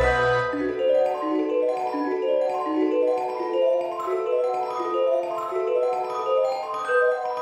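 Background music: a light melody of short notes on mallet percussion, with a low bass note fading out about a second in.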